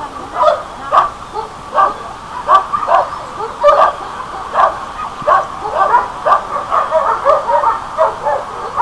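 Several dogs barking and yipping in short, high calls that come several a second and overlap, without letup.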